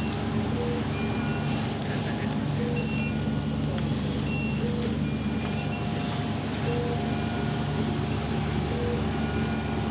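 Intensive-care bedside equipment sounding: short electronic beeps at several different pitches, coming irregularly about once a second, over a steady machine hum.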